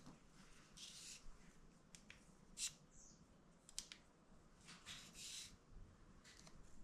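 Near silence, with a few faint light clicks and soft rustles of small tools and parts being handled on a workbench.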